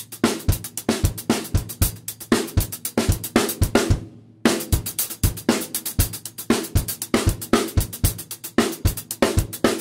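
Drum kit played alone: a steady rock beat of bass drum, snare and hi-hat with Meinl cymbals. A little before the middle the kit stops for about half a second, then the beat comes straight back in.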